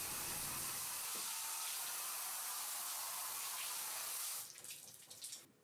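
Garden hose spray nozzle showering water onto a concrete countertop: a steady hiss of spray splashing on the wet surface, dying away about four and a half seconds in.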